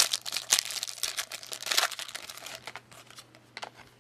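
Plastic wrapper of a 2006 Razor Poker trading card pack crinkling as it is torn open by hand, a quick run of crackles for about two and a half seconds that then dies down to a couple of faint clicks.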